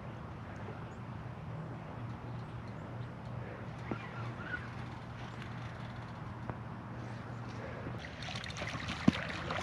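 A low, steady engine hum across the water, with water splashing and a sharp knock near the end.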